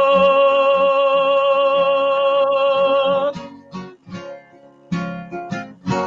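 A man's singing voice holds one long note with a slight vibrato over an acoustic guitar accompaniment. The voice stops about three seconds in, and the guitar goes on alone with a run of strummed chords.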